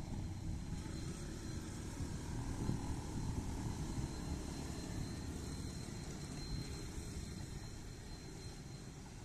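Distant low rumble of a diesel-hauled train climbing across the fields. A motorcycle passes close by about three seconds in.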